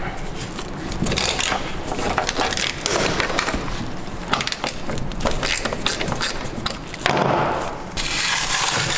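Hands working the car's wiring loose: irregular clicks, knocks and plastic rustling, with a longer scraping rustle about seven seconds in and another just after.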